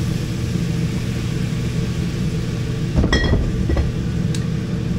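Steady low machinery hum of a ship under way, heard in the galley. About three seconds in there is a short metallic clank with a ringing tone, then a couple of fainter clicks.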